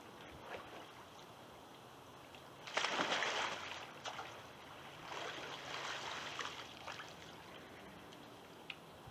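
Water splashing as a sea kayak capsizes in a pool, followed about two seconds later by a longer wash of water as the paddler sweeps the Greenland paddle and rolls the boat back upright.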